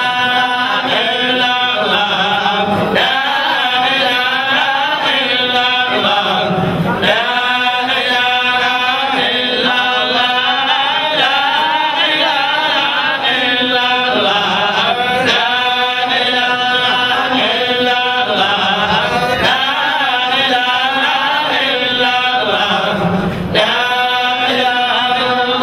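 Hamallist Sufi men chanting an Islamic devotional song together, sung into handheld microphones. The melodic phrases run on with short breaks between them.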